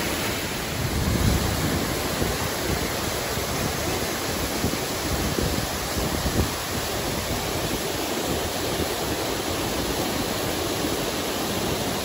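Waterfall water rushing over rock ledges into pools, a steady, full rushing noise, with a few stronger low rumbles about a second in and again around six and a half seconds.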